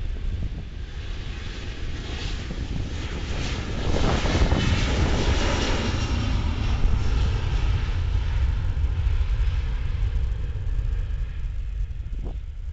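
Boeing 737-400 airliner's CFM56-3 turbofan engines at takeoff thrust during the takeoff roll, a steady jet roar with a high whine in it. It grows louder about four seconds in and stays loud as the plane goes by and lifts off.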